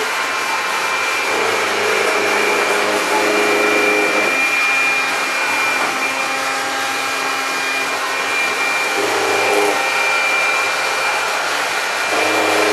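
Floor-mopping robot running: a steady whirring hiss from its motors with a thin high whine over it, a lower hum joining in briefly a couple of times.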